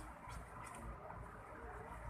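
Glue slime being mixed, giving faint irregular clicks and patter, a few a second, over a low rumble.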